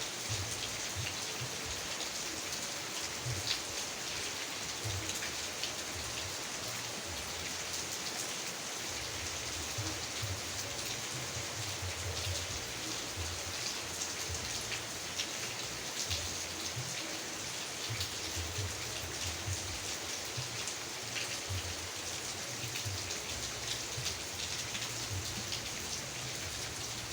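Steady rain falling on a surface, a continuous hiss with many small drop ticks and soft low patters throughout.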